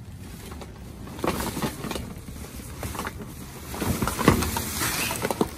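Plastic bags and cardboard boxes rustling and crinkling as trash is rummaged through by hand, with scattered knocks. It picks up about a second in and is loudest around four seconds in.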